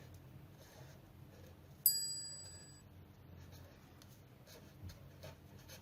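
Pen drawing on paper in faint scratchy strokes, with a single bright metallic ding about two seconds in that rings out for about a second.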